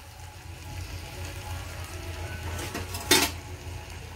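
Potato and capsicum sabji sizzling faintly in a non-stick kadhai, with one sharp metallic clink of the slotted steel spoon against the pan about three seconds in.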